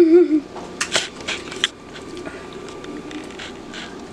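Wooden spoon stirring chopped salsa in a glass bowl: several sharp clicks and knocks against the glass about a second in, then faint scraping. A brief vocal sound comes at the very start.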